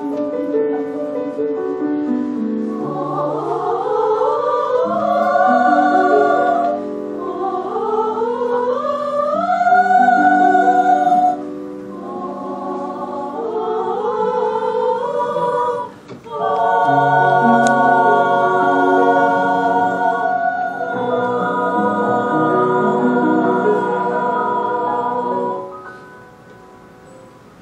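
A women's choir singing, with rising phrases and long held chords; the singing stops about two seconds before the end.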